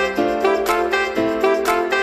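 Intro music with sustained melodic notes over a steady beat, about two beats a second.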